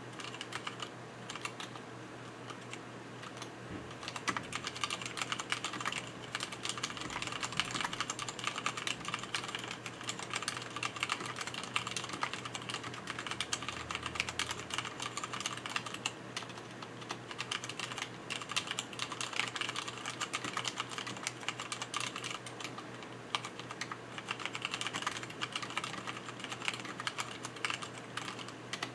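Fast continuous typing on a mechanical keyboard with Cherry MX Black linear switches and PBT keycaps: a dense, steady stream of key clicks and bottom-out clacks.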